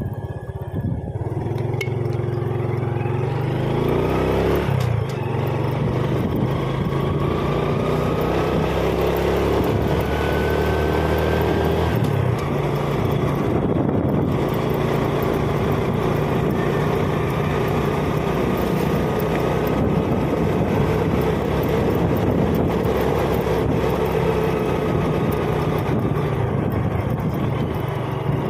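Motorcycle engine running while being ridden, heard from the rider's seat: its note climbs as it picks up speed over the first few seconds, then holds a steady cruising pitch over a rushing road noise.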